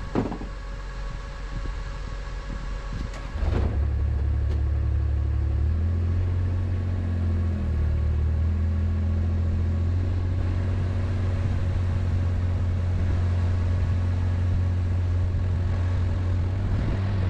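Engine of a bucket loader running, with a click near the start. About three and a half seconds in the engine comes up to a louder, steady, low drone as the machine drives on.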